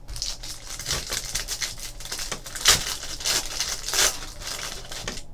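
Foil wrapper of a Bowman Chrome baseball card pack crinkling and tearing as it is ripped open by hand: a quick run of crackles, with louder rips about two and three-quarter seconds and four seconds in.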